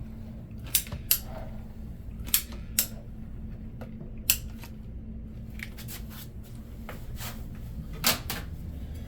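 A trowel clicking and scraping as thinset is spread over GoBoard seams: about half a dozen sharp scrapes and taps at irregular intervals, over a steady low hum.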